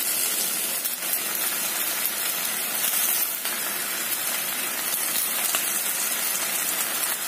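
Beef with ginger and garlic sizzling in oil in a clay pot over medium-low heat: a steady hiss. A few faint soft knocks come as pieces of fried tofu are laid on top.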